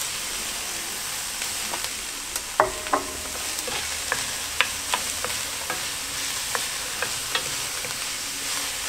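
Diced onions sizzling as they sweat in coconut oil in a stainless steel pan, with a steady hiss. A wooden spoon stirs them, clicking and scraping against the pan now and then, loudest twice a little under three seconds in.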